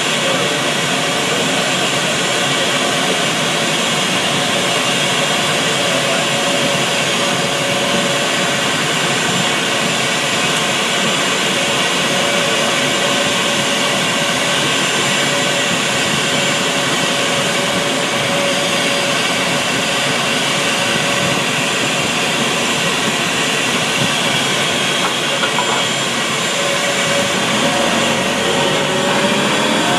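Steady jet turbine whine and rush of an Embraer 190 on the ramp, heard from inside a pushback tug's cab. Near the end a rising engine tone joins it as the tug begins the push.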